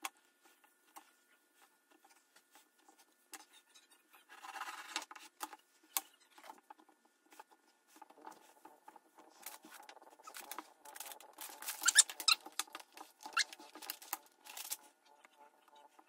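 Tailor's chalk scraping in short scratchy strokes along the edge of a wooden ruler on cotton fabric, marking a line, with the ruler and fabric tapped and shifted on the table. The scraping is densest between about ten and fifteen seconds in, with a few brief squeaks.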